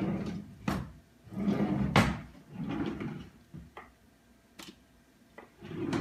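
A few sharp knocks and clatters of kitchen things being handled and set down on a wooden table, spaced a second or two apart, with softer low rustling between them.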